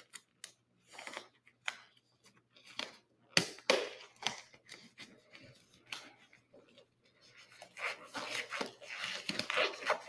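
Disposable nitrile exam gloves being pulled onto the hands: rubbery rustling and stretching with scattered snaps. The loudest snaps come about three and a half seconds in, and the rustling is busiest over the last two seconds.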